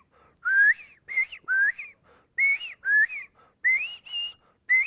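A man whistling an imitation of the northern bobwhite's early-morning covey call, the 'koi-lee' of a covey waking up. It comes as a quick run of short two-note whistles, each note sliding upward, repeated about four times.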